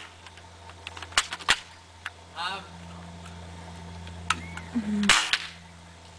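BB gun shots: two sharp cracks a little over a second in, close together, and a third, louder shot about five seconds in.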